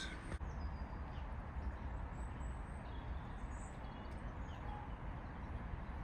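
Quiet woodland ambience: a few faint, scattered bird chirps over a steady low rumble.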